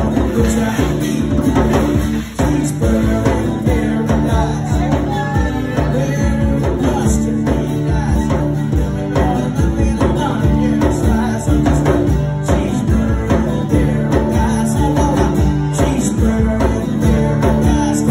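Live acoustic band: a strummed acoustic guitar and a djembe hand drum playing a steady beat.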